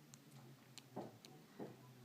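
A few faint, irregularly spaced light clicks and soft taps against near silence.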